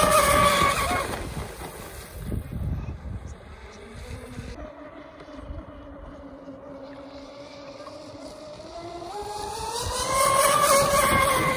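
Twin 2000kv 4082 brushless electric motors of a 36-inch Proboat Zelos RC catamaran whining at high speed as it makes two passes. It is loud at first, its pitch dropping about a second in as it moves away, then fainter and lower through the middle. The whine rises again to a second loud pass near the end and begins to fall.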